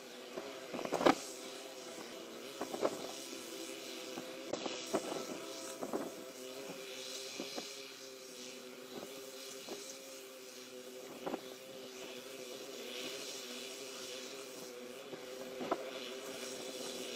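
A train running along the track: a steady engine or motor hum with irregular clunks and knocks from the wheels on the rails.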